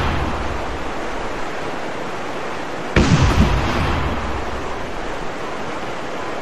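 Outro sound effect: a deep boom strikes about three seconds in, its low rumble fading over the next second or so, over a steady hiss. The boom repeats in a loop about every four seconds.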